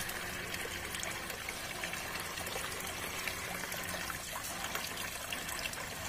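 Water trickling and dripping steadily from a homemade tiered fountain into its basin.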